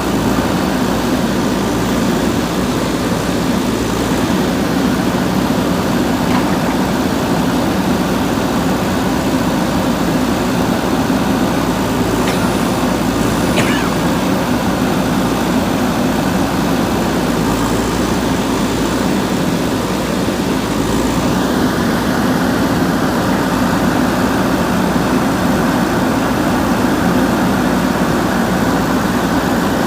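Diesel engine of a JCB 3DX backhoe loader running steadily at work, a constant low, unbroken drone.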